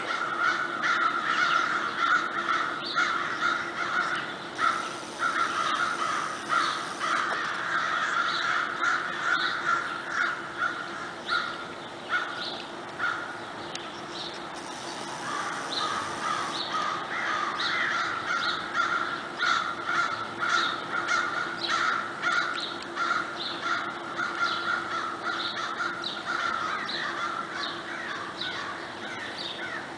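A flock of crows cawing, many calls overlapping without a break.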